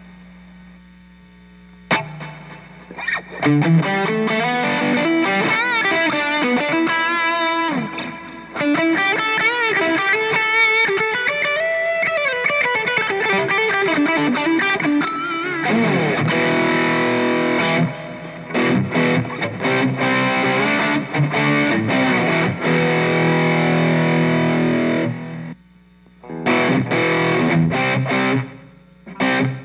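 Distorted electric guitar played through an Orange Crush 35 LDX combo amp. A faint steady amp hum for about two seconds, then single-note lead lines with bends and vibrato, then chord riffs broken by short stops, ending in choppy, stop-start hits.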